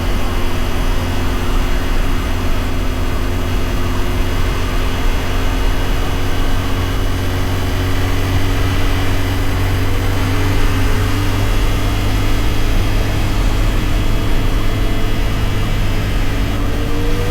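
CFMoto 450SR parallel-twin motorcycle engine running at a steady cruise under a constant rush of wind, its pitch creeping slowly upward, then starting to climb as the throttle opens near the end.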